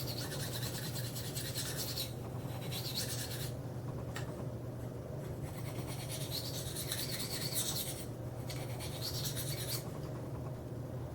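Knife edge being drawn freehand across a Spyderco Sharpmaker fine ceramic stone, a dry hissing scrape. There are about five strokes of a second or so each, with short pauses between them.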